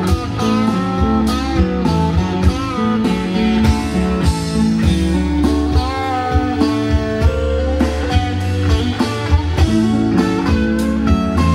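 Live band playing: a lead electric guitar bends notes over drums, bass and rhythm instruments.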